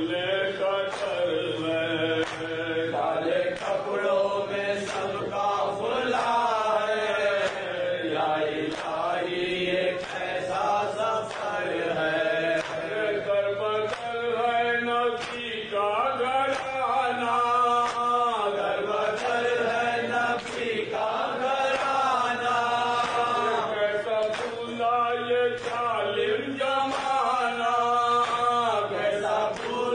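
Men reciting an Urdu noha (Shia lament), a lead voice chanting the verses into a microphone, kept to a regular beat of hand strikes from matam.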